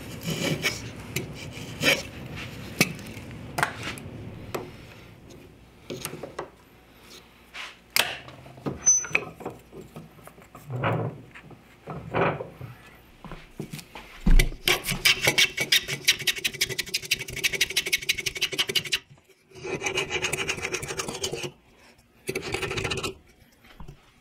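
Hand plane shaving a small pine strip on a wooden workbench: a series of separate scraping strokes, then a long stretch of fast, even ticking about two-thirds of the way through, and two more shaving strokes near the end.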